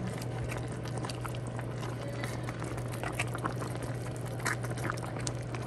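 A pot of thick mung bean stew with hot water just added, being stirred with a wooden spoon: wet bubbling and squelching with scattered small clicks, over a steady low hum.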